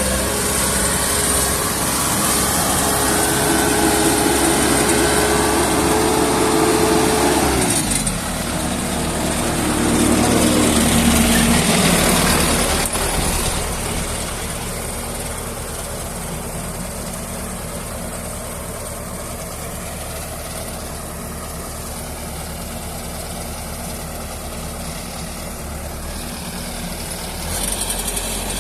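Combine harvester engine and machinery running. A steady engine note drops in pitch about a quarter of the way in, followed by a louder, noisier stretch, then steadier, quieter running.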